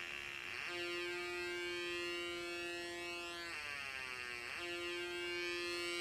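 Funway 1 two-transistor electronic siren kit sounding through its small loudspeaker: a steady, buzzy electronic tone. It glides down in pitch at the start, then slides lower again around the middle and snaps back to the steady note a second later.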